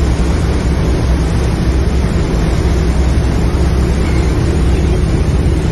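A passenger boat's engine running steadily under way, an even low hum, with the rush of water churning in its wake.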